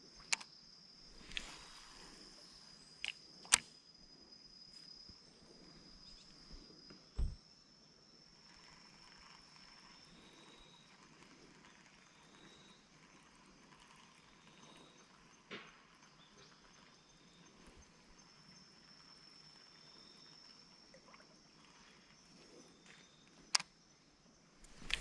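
Insects singing, a steady high continuous trill, with a second insect giving short chirps at intervals. There are a few sharp clicks and a dull thump about seven seconds in.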